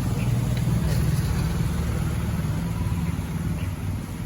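Small motorbike engines running steadily, a continuous low hum.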